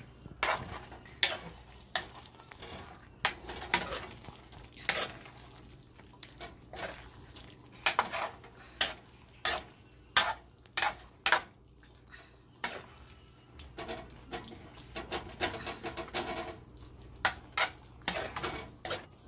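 Metal spoon stirring a thick stew in a large metal pan. It clinks and scrapes against the pan's sides and bottom in irregular strokes, about one or two knocks a second.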